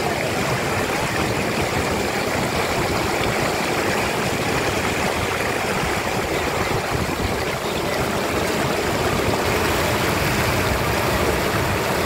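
Whitewater rushing over rock slabs in a river, close by: a steady, loud, unbroken rush of water.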